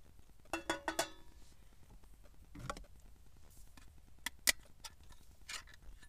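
A stainless steel cooking pot is set down on a portable gas stove, clanking with a short metallic ring about half a second in. Scattered sharp clicks follow as a tin can is handled, the loudest about four and a half seconds in.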